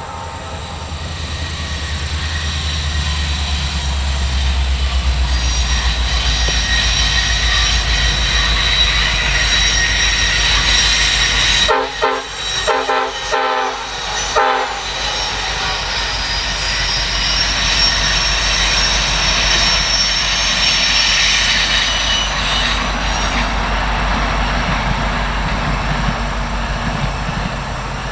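Diesel-hauled train passing close by: a steady loud rumble of locomotive engines and rolling cars with wheel-on-rail noise. The noise breaks up into a choppy stretch about halfway through.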